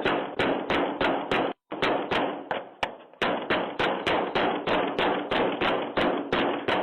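A man banging again and again on a front door and the wall beside it: heavy knocks at a steady pace of about three a second, with one short break. It is heard through a doorbell camera's thin microphone.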